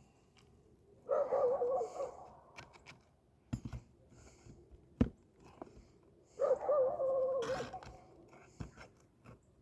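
A dog whining twice, each a wavering whine lasting about a second, with a few sharp knocks in between.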